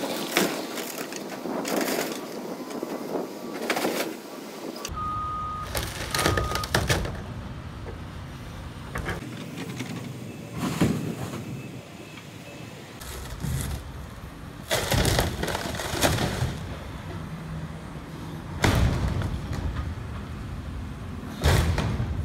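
CAT excavator's bucket crushing and tearing a fiberglass underground fuel tank: repeated loud cracks and crunches of the fiberglass breaking, every one to three seconds. The excavator's engine runs underneath from about a quarter of the way in.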